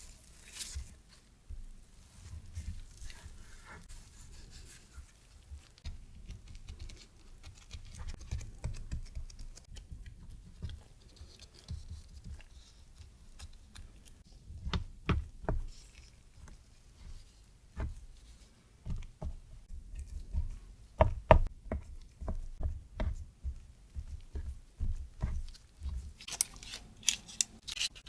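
Cookie dough being portioned and pressed into a metal muffin tin: soft handling of the dough with scattered taps and clicks, a few sharper knocks past the middle, and a crisp rustle near the end.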